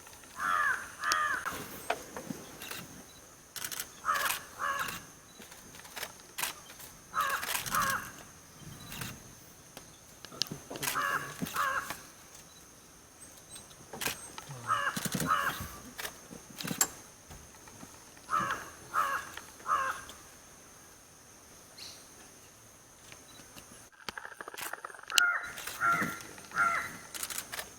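A crow cawing over and over, in quick groups of two or three caws a few seconds apart.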